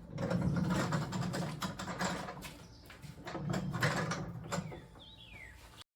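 Caster wheels on a wooden 2x6 platform rolling across a concrete floor, a low rumble with clicks and rattles, in two pushes with a short pause between them.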